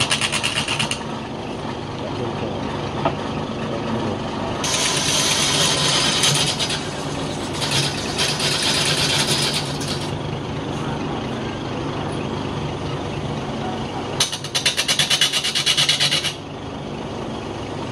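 Wood lathe motor running with a steady hum while a hand-held turning chisel cuts the spinning wooden blank. There are four separate cutting passes, each a burst of loud scraping and shaving noise lasting one to two seconds. The last pass has a fast chattering rattle.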